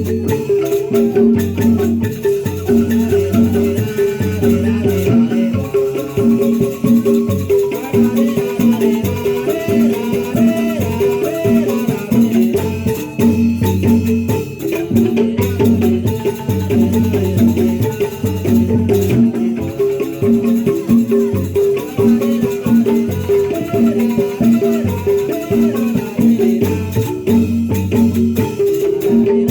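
Traditional ensemble music: mallet-struck percussion playing a fast repeating pattern over a steady low beat.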